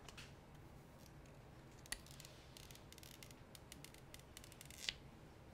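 Faint sounds of a new phone being handled and its paper protective sheet peeled off the screen. There is a sharp click about two seconds in, then a run of quick crackles as the sheet comes away, ending in a louder snap near the end.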